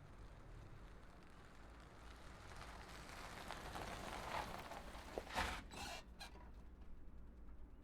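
SUV returning: its engine and tyres swell in level over a few seconds, then a few short, sharp clunks come about five to six seconds in, and a low rumble remains.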